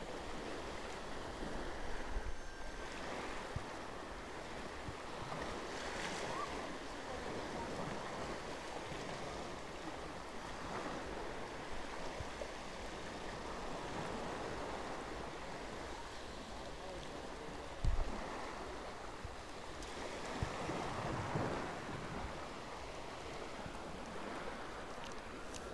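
Small sea waves washing and lapping, with wind on the microphone. A single knock comes about two-thirds of the way through.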